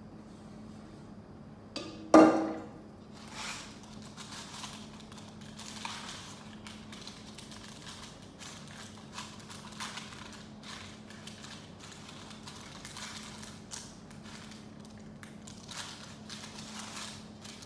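A stainless steel saucepan gives one loud ringing metal clunk about two seconds in. After it a spatula scrapes and spreads cake batter in a metal baking tin in short, uneven strokes, over a faint steady hum.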